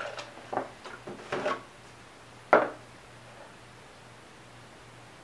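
A plastic gallon milk jug being handled and poured into a plastic cup: a few light clunks and knocks, then one sharp, loud thump about two and a half seconds in as it is set down on the desk.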